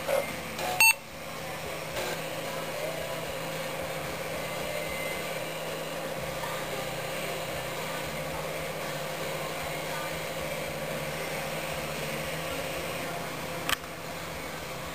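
Vintage Visual Commuter 1083 computer running, with the steady hum and whir of its power supply and spinning floppy drive. Sharp clicks come about a second in and again near the end.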